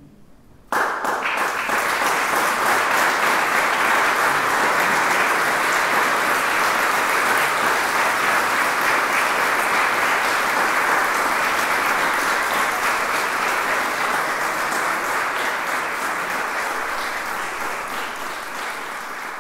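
Audience applause, starting suddenly about a second in, holding steady, then slowly dying down toward the end.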